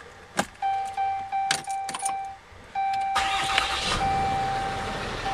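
Ignition key clicking in a 2011 Dodge Ram's 6.7L Cummins inline-six turbodiesel, with the dash chime sounding a steady tone; about three seconds in the engine cranks, fires and settles into a steady idle.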